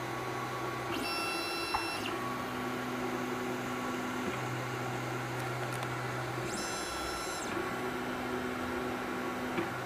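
Wanhao Duplicator 9 3D printer's stepper motors humming in steady stretches that shift pitch as it runs auto bed leveling, moving the probe to different spots on the build plate. Twice, about a second in and again near seven seconds, a brief higher-pitched whine joins in.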